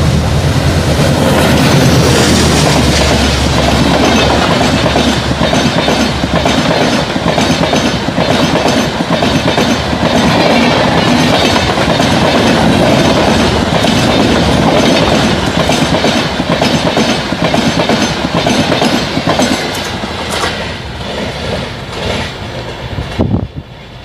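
An Indian Railways ALCO WDM-3A diesel locomotive passing close at speed, its engine drone strongest in the first few seconds, followed by the Humsafar Express coaches rattling by with a steady clickety-clack of wheels over rail joints that dies away near the end.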